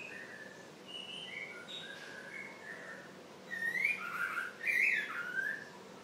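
Caged songbird singing: a string of short, clear whistled notes at changing pitches, then louder, more complex warbling phrases in the second half that stop shortly before the end.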